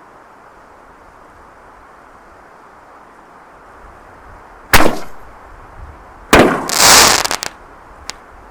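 Canister firework shells going off: a sharp loud bang a little over halfway through, then a second bang followed by about a second of dense crackling, and a small pop near the end.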